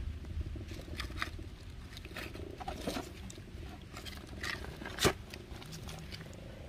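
Light rustling and scattered small clicks of something being handled, with one sharp click about five seconds in, over a faint low rumble.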